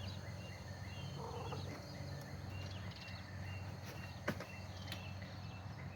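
Quiet background with faint, short bird chirps repeating every half second or so over a low steady hum, and a single click a little after four seconds in.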